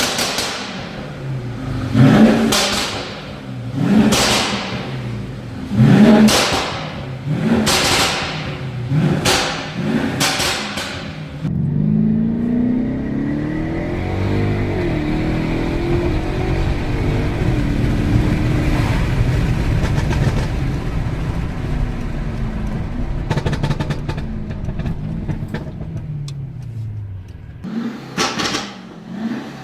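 Tuned Mercedes-Benz S500's twin-turbo V8 exhaust, blipped hard about every two seconds for the first ten seconds. Then comes a long stretch of steady running whose pitch rises and sinks slowly, with a rapid crackling from the exhaust near the end of it, and a few more sharp blips at the very end. The pops and crackles come from a stage 1 tune.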